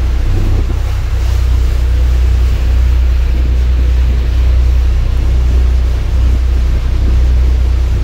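Steady low drone of a cruise boat's engine under way, with wind buffeting the microphone and water rushing past the hull.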